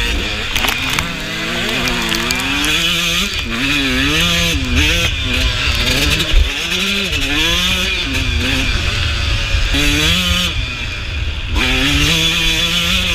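Suzuki RM125 two-stroke dirt bike engine revving hard, its pitch rising and falling again and again as the rider twists and closes the throttle around the motocross track, over a steady low rumble.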